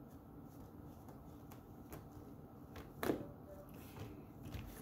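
Faint sounds of homemade slime being worked in the hands: scattered soft clicks, with one louder click about three seconds in.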